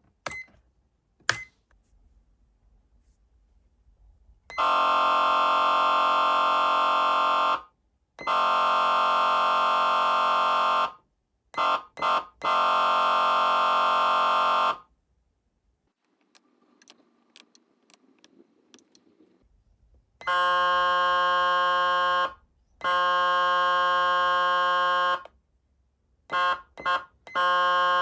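SoundOff Signal nERGY 400 siren amplifier sounding its electronic air-horn tone in held blasts of about three seconds with a few short taps between, steady in pitch with no siren wail. Around 20 seconds in it switches to a second horn tone with a different, more clearly pitched timbre. A few sharp clicks come just before the first blast.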